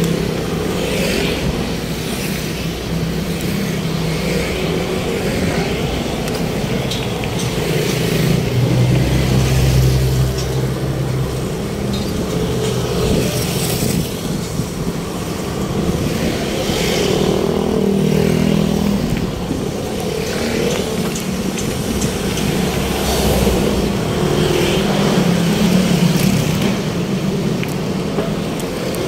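Road traffic: motor vehicles running and passing close by, a steady rumble that swells louder as vehicles go by, loudest about a third of the way in.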